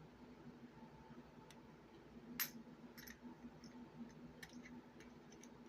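Faint, scattered clicks of small gauge parts being handled and fitted as the gears of a Mitutoyo height gauge are lined up, over a low steady hum; the sharpest click comes about two and a half seconds in.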